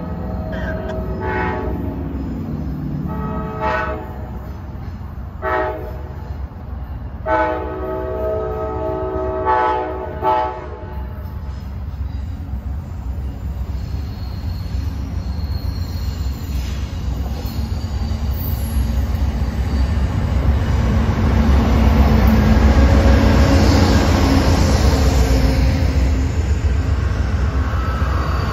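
Amtrak passenger train approaching and passing. Its diesel locomotive's several-note horn sounds four blasts, the last one long. Then the rumble of the locomotive and of the wheels on the rails builds and grows loud as the bi-level Superliner cars go by close to the track.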